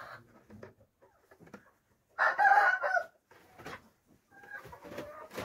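A rooster crowing once, loud and a little under a second long, about two seconds in, with quieter chicken clucks and a few light knocks around it.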